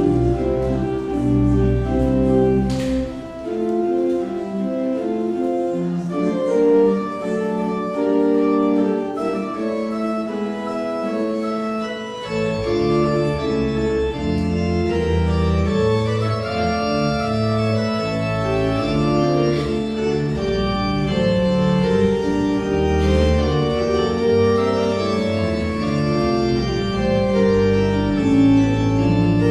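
Organ music: held chords with moving upper lines. The deep bass notes drop out a few seconds in and return about halfway through.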